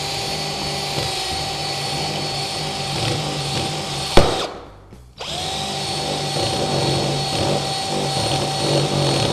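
Cordless drill running steadily with its bit in the star-drive head of a GRK R4 screw in pressure-treated lumber, driven hard to try to strip the head out; the head holds without stripping. The motor stops abruptly with a sharp click about four seconds in and starts again about a second later.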